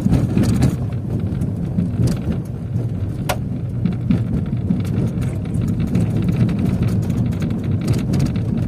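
Car driving on an unpaved dirt road, heard from inside the cabin: a steady low rumble of engine and tyres, with scattered clicks and knocks.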